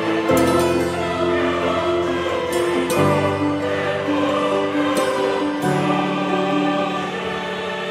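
Background music: a choir singing long held notes over sustained chords that change every two to three seconds.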